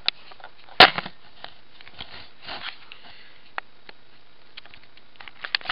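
Handling noise as a camera is set down on a surface: a sharp knock about a second in, then a few lighter taps and a brief rustle.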